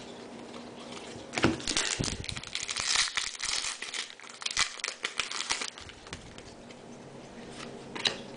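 Foil trading-card pack wrapper torn open and crinkled by hand: a run of crackling rustle starting about a second and a half in and lasting about four seconds, then quieter card handling with a light tap near the end.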